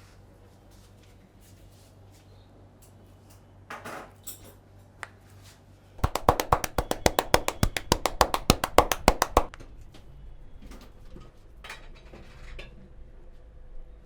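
A quick, even run of sharp hand slaps, about eight a second for three and a half seconds, typical of percussive tapping in a barber's head and back massage. Softer rubbing sounds come a few seconds before and after.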